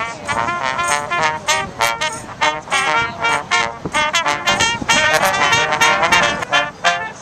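Music led by brass instruments, playing a run of short, quick notes.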